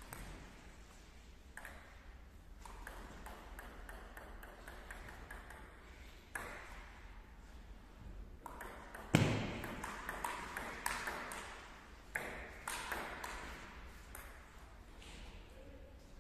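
Table tennis ball clicking off paddles and the table in quick, uneven exchanges during rallies. A louder thump comes about nine seconds in.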